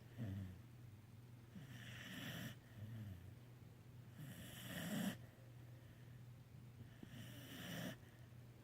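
Snoring: slow breaths about every three seconds, each a hissing breath with a low snore under it, the loudest about halfway through.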